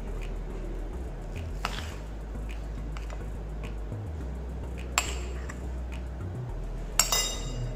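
A metal spoon clinking against a ceramic plate a few times while scooping out minced chicken, with the sharpest clicks about five seconds in and near the end, over a steady low hum.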